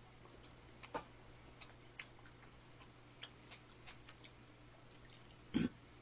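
Faint, scattered small clicks and ticks from eating and handling food at the table, at irregular intervals, with one louder brief knock about five and a half seconds in.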